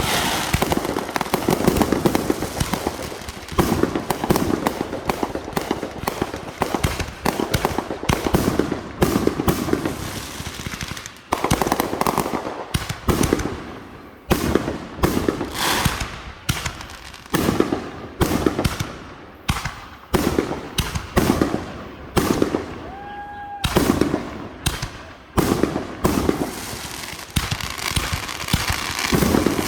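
Fireworks going off in a rapid barrage of sharp bangs and crackles, in rolling volleys every second or two. A short whistle sounds about three-quarters of the way through.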